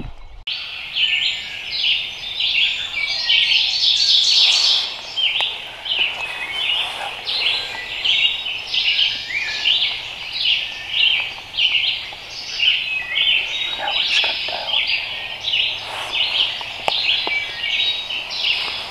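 Songbirds singing, a steady run of high chirping phrases repeating about once a second.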